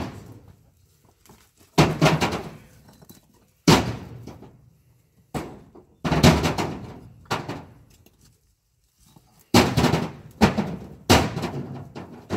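Old used bricks being tossed one at a time into a trailer bed, each landing with a sharp knock that fades quickly; about a dozen irregular impacts, some in quick pairs.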